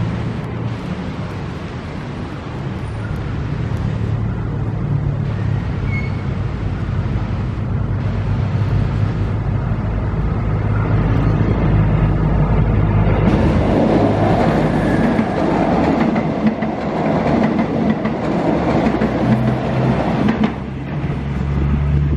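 Green-and-white diesel multiple-unit passenger train running along the track, its engine humming steadily. About halfway through, the rumble and clatter of its wheels on the rails grows louder as it passes close.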